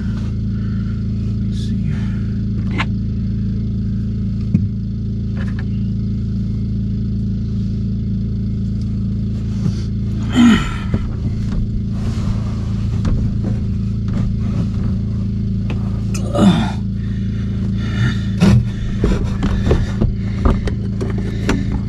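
Hands working the plastic drain tailpiece and nut under a sink, giving two louder scraping creaks about ten and sixteen seconds in, then a run of light clicks and knocks near the end. A steady low hum runs underneath throughout.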